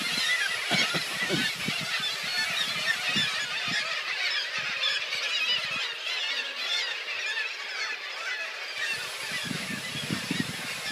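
A black-legged kittiwake colony calling: many birds at once in a dense, unbroken chorus of overlapping calls, with low rumbles about a second in and again near the end.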